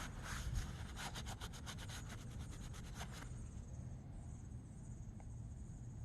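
A rag rubbed briskly back and forth over the lathe's metal nameplate to wipe off kerosene and old grime, in quick strokes about six a second that stop about three seconds in; after that only a faint steady hiss remains.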